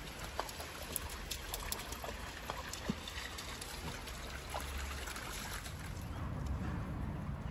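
Shallow stony river running and trickling, with small dogs splashing through it: short, sharp splashes and knocks over the first few seconds. Near the end the water gives way to a lower, rustling rumble.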